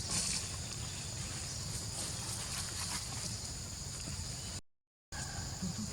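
Outdoor ambience: a steady high insect drone over a low rumble, with a few faint ticks, cut off to silence for about half a second near the end.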